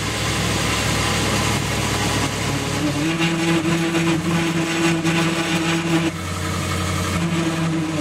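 Ford Bronco running, with a steady pitched hum that comes in about three seconds in, holds for about three seconds and cuts off, then comes back briefly near the end. This is the weird noise the owner hears right at start-up that goes away once the truck is under way, cause unknown.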